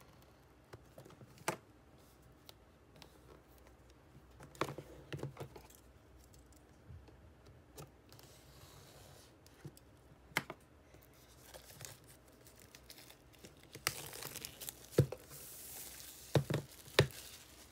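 Plastic shrink wrap being picked at, torn and peeled off a cardboard box: scattered scratches and clicks, then a longer crinkling tear with a few sharp crackles near the end.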